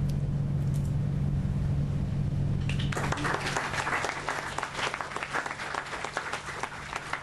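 A low steady hum, then applause breaking out about three seconds in and continuing: a small audience and the panelists clapping.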